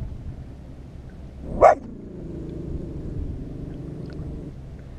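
A dog barks once, a single short bark about a second and a half in.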